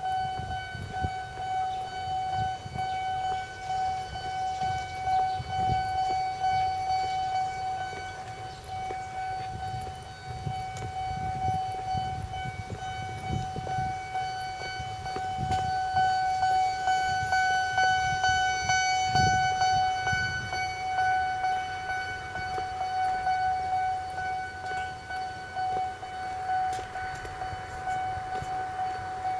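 Japanese railway level-crossing alarm ringing continuously: one clanging tone repeating rapidly, the warning that a train is approaching the crossing.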